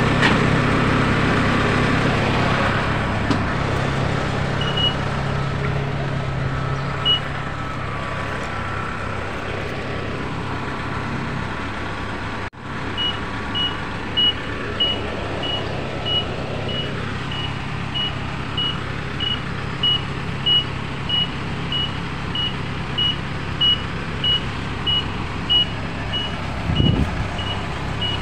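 Kubota DC-70 combine harvester's diesel engine running steadily. A high electronic warning beep sounds twice early on, then repeats regularly, about three beeps every two seconds, from about halfway through.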